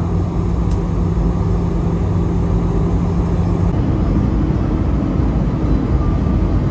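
Steady cabin noise inside an Airbus A320 in flight: a loud low rumble of engines and airflow. About four seconds in, a steady hum drops out and the rumble changes abruptly, with the aircraft on its landing approach.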